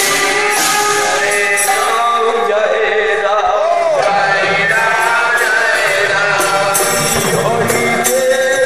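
Devotional kirtan: a voice sings a chanted melody with others, over repeated strikes of metal hand cymbals.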